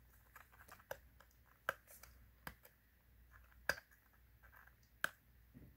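Faint, irregular small clicks and taps of a screwdriver and hard plastic parts being handled while taking a Bluetooth speaker apart, with three sharper clicks standing out.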